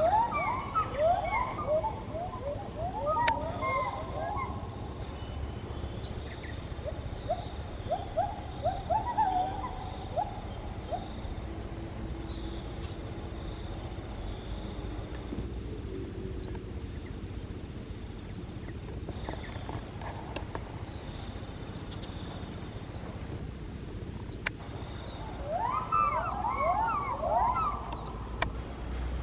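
Wild primate calls in the forest: three bouts of quick, repeated rising whoops, near the start, about a third of the way in and near the end. A steady high insect drone runs underneath.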